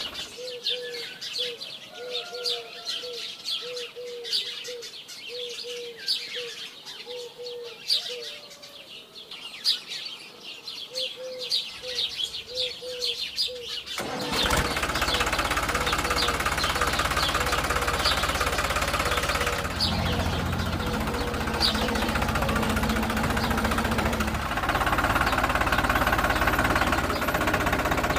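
Small birds chirping in short notes repeated several times a second. About halfway through, a loud, steady, rattling engine-like running sound starts and carries on, with the chirps faint behind it.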